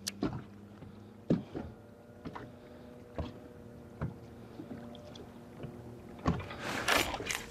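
Small waves knocking against a bass boat's hull at irregular intervals, over a faint steady hum, with a short rush of noise near the end.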